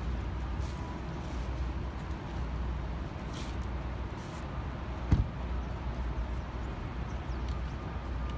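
City street ambience: a steady low rumble of traffic, with one sharp thump about five seconds in.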